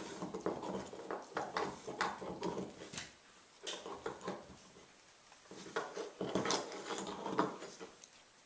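Dog chewing and gnawing: irregular clicking and scraping of teeth, coming in spells with short pauses.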